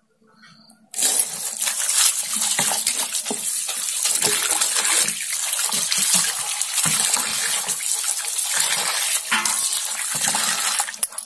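Water running from a tap into a steel plate, with splashing as small eggplants are rubbed clean by hand. It starts about a second in and stops just before the end.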